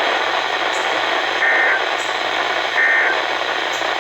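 Steady static hiss from a weather radio receiver between broadcast messages. Two short, high electronic beeps sound over it, one about a second and a half in and one near the end.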